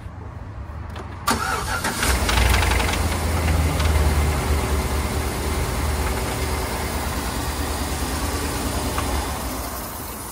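Chevrolet Tahoe V8 engine cranking and catching about a second in, the revs flaring briefly and then settling to a steady idle. The start-up noise under the hood is one the owner considers normal for this truck.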